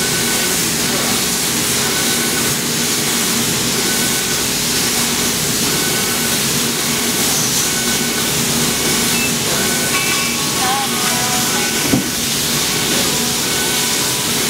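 Fabric laser cutting machine running while it cuts rows of parallel slits: a steady loud hiss of blowing air and fans, with short faint high tones coming and going as the head moves from line to line.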